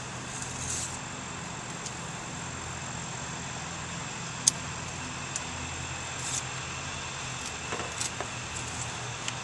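Light clicks and scrapes of an engine oil dipstick being pulled from its tube, wiped with a rag and slid back in, with one sharp click about four and a half seconds in, over a steady low hum and a faint high whine.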